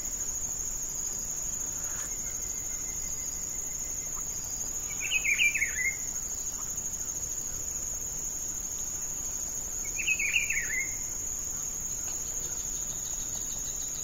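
Steady high-pitched insect trill, with a bird's short falling phrase of about a second heard three times, roughly every five seconds.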